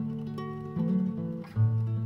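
Music from a song's instrumental passage: an acoustic guitar playing chords, a strong new low chord striking about one and a half seconds in.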